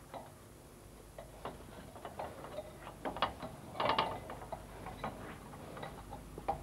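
Footsteps and hand grips on an aluminium ladder during a climb down: irregular clanks and taps of shoes on metal rungs, with a louder cluster about four seconds in.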